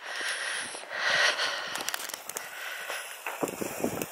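Wind noise on a handheld microphone, then light, irregular clicks of footsteps and handling as the walker moves along the path, with breathing close to the microphone.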